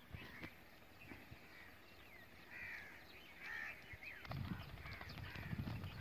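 Crows cawing, several short harsh calls a second or so apart. A low rumble comes in during the last couple of seconds.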